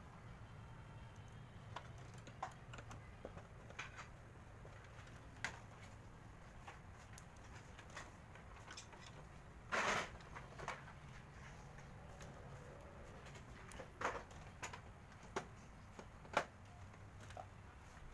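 Scattered light clicks and knocks from hands handling a photocopier's plastic paper-guide parts, over a faint low hum. About ten seconds in comes a louder half-second scrape or rattle, and a sharp click follows near the end.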